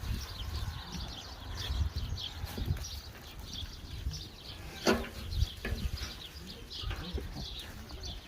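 Goats eating freshly cut alfalfa: rustling and chewing at the fodder, with a sharp knock about five seconds in.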